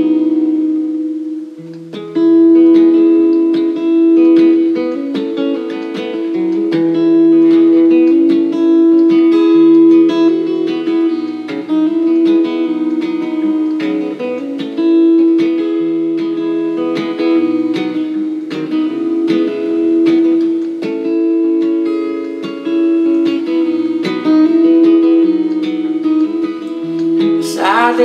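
Solo acoustic guitar playing an instrumental passage: chords over a bass note that changes every couple of seconds, with one ringing note held throughout. Singing comes back in right at the end.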